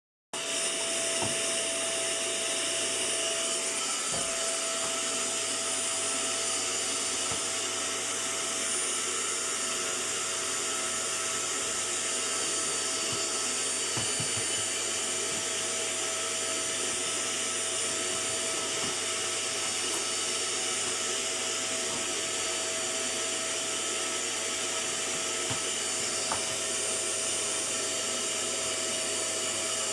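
Vacuum cleaner running steadily: a constant motor whine over an even rushing hiss.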